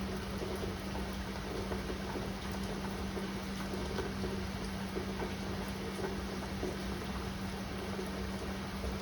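Steady rain pattering, with faint scattered drops ticking and a steady low hum underneath.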